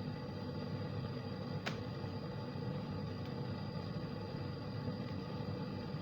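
Steady low background rumble, with a single sharp click a little under two seconds in.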